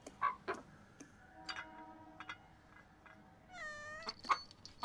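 A domestic cat meows once, a drawn-out call of about half a second that falls in pitch and then levels off, about three and a half seconds in. A few short, sharp sounds come through the quiet room, two near the start and the loudest just after the meow.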